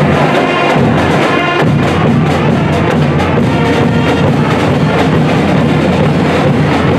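High school pep band playing the school fight song: brass led by sousaphones and trumpets over a drumline of bass drums, snares and a drum kit.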